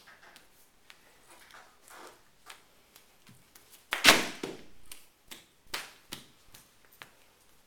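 A large sheet of paper taped to a wall rustling and slapping as a paint-covered body is thrown against it, loudest about four seconds in. Scattered light knocks and scuffs come from bare feet on the floor and the body brushing the paper.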